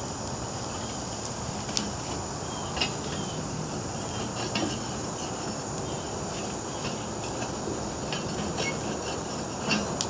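Steady rushing roar of a foundry melting furnace's burner, with scattered faint clicks and ticks over it.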